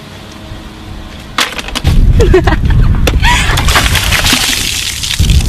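Water dumped from a bucket splashing over a person, a dense splashing rush about three seconds in that lasts under two seconds, with a few short yelps. A loud low rumble sits under it from about two seconds in.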